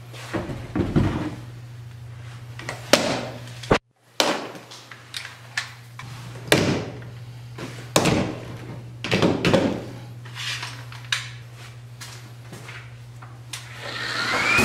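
Plastic quick-release bar clamps being released and taken off a glued wooden stool frame: a string of separate clicks, clacks and knocks of clamps and wood over a steady low hum. Near the end an electric random orbital sander starts up with a rising whine.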